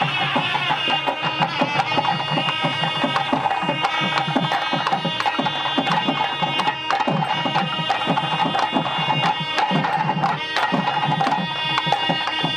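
A group of South Indian double-reed pipes (shawms with flared bells) playing a folk tune together, over a steady beat of drums.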